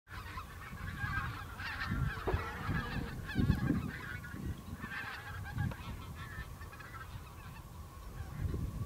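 A flock of geese honking in the distance, many short calls overlapping in a steady chatter, with low rumbling noise underneath.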